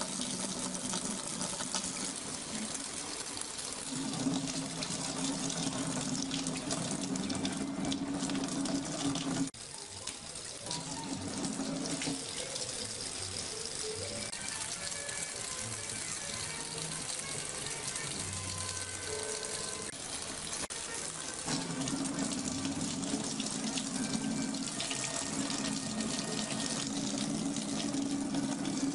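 Water running steadily, with a sudden break about nine and a half seconds in.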